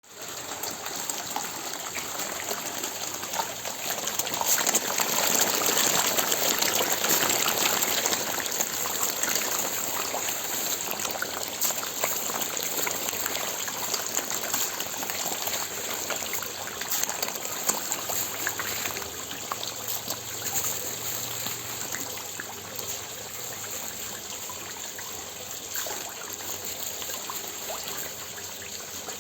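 Water gushing and trickling steadily, loudest about five to eight seconds in.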